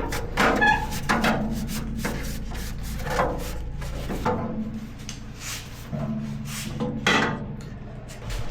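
Repeated scraping strokes on metal, about one a second and irregular, over a steady low hum that stops about four seconds in.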